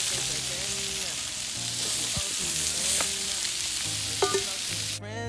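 Meat sizzling on a charcoal barbecue grill over glowing coals, a steady crackling hiss.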